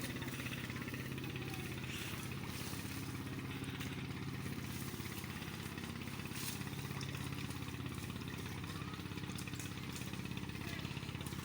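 A small engine running steadily at an even, unchanging speed.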